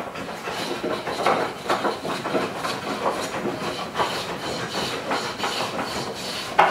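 Oakum fibre being worked into a wooden hull seam by fingers and a thin caulking iron: irregular scraping and rustling of the fibre and steel against the planking, with a sharper knock near the end.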